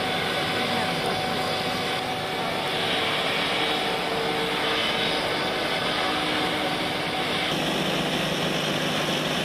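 Military vehicle's engine and machinery running steadily: a dense hum with several faint steady tones, shifting in character about seven and a half seconds in.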